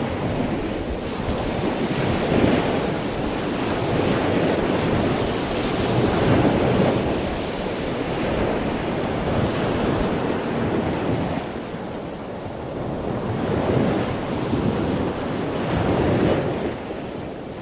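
Ocean waves breaking and washing on a shore, the surf swelling and easing every few seconds, with a quieter lull about two-thirds of the way through.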